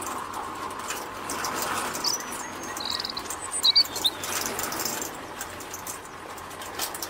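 Small birds chirping a few times in the middle, including one short trill, over a steady background hiss.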